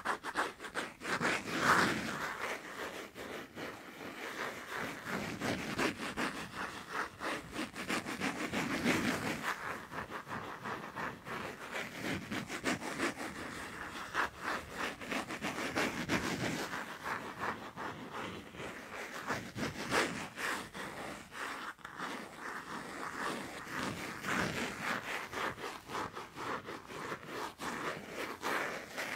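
Fast tapping and scratching on a passport: a dense, continuous run of quick taps mixed with scratching strokes.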